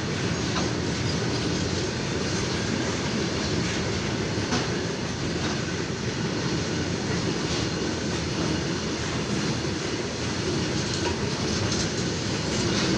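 Freight train wagons rolling past in a steady rumble, with occasional clicks of the wheels over the rail joints.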